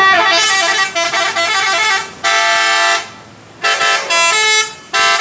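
Telolet horn of a Red White Star bus, a multi-tone musical air horn: a quick run of stepping notes for about two seconds, then a held chord, then a pause and a few shorter blasts that start and stop sharply.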